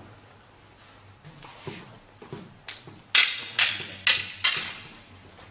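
About eight sharp slaps and swishes of hands and uniforms during close-contact martial-arts practice. They are faint at first and louder from about three seconds in.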